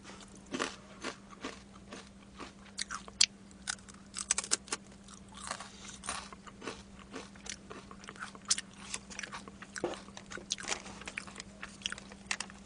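Close-miked chewing of crispy boneless fried chicken: many short crunches and wet mouth clicks at an irregular pace, over a faint steady hum.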